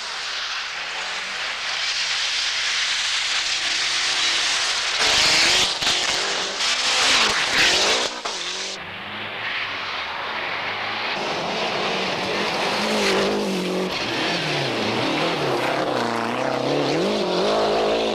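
Rally cars driven flat out on gravel and dirt stages, their engines revving up and falling back again and again through gear changes, over the hiss of tyres and flung gravel. The sound changes abruptly twice, as short clips follow one another.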